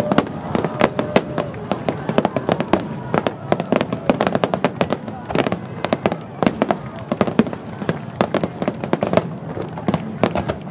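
Finale barrage of aerial firework shells bursting: many sharp bangs in quick succession, several a second, with no let-up. Spectators' voices sound underneath.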